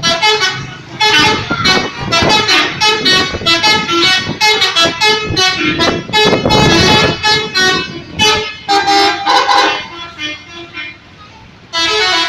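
Bus's multi-tone telolet horn playing a rapid tune of short, changing notes for about ten seconds, then one more short blast near the end.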